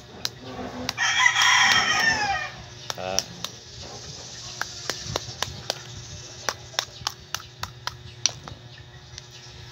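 A rooster crows once about a second in, the loudest sound. After it, a knife blade taps and scrapes at a sea urchin's shell as it is cracked open: a run of sharp, irregular clicks.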